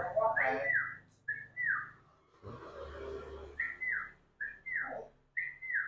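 Short whistled notes, each sliding slightly downward, mostly in quick pairs and repeated about a dozen times.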